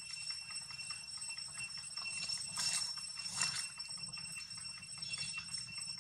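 Soft irregular clicks and a couple of brief fur rustles as a long-tailed macaque grooms another macaque's head, over a steady high-pitched whine.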